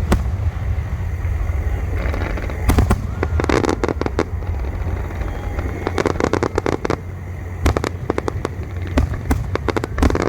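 Aerial fireworks going off: sharp bangs and clusters of rapid crackling pops from crackle shells, over a continuous low rumble.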